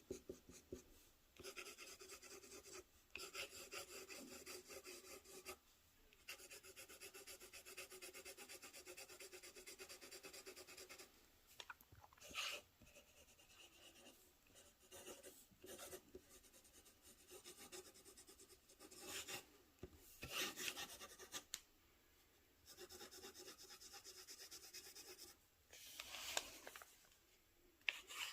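Faint scratching of a broad-nib fountain pen writing on thin Tomoe River paper: several stretches of continuous pen strokes with short pauses between them, and a few brief louder strokes.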